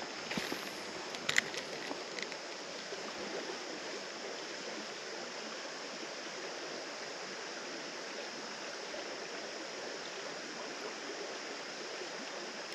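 Steady rush of a shallow creek running over a riffle, with a few light clicks about a second in.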